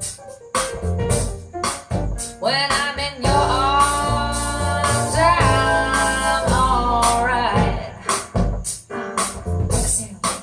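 A recorded song playing, with drums and bass. A held melody line comes in about two and a half seconds in and drops out a few seconds before the end, when the drum hits come to the front again.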